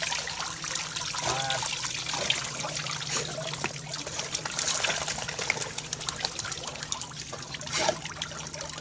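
Water trickling and splashing in knee-deep flooded timber, with many small drips and splashes, as a hunter moves in waders and a wet retriever stands dripping on its stand.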